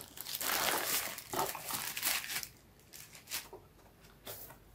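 Thin plastic bag crinkling as a wrapped speaker is pulled out of its cardboard box, for about two and a half seconds. After that, only a few faint taps and rustles.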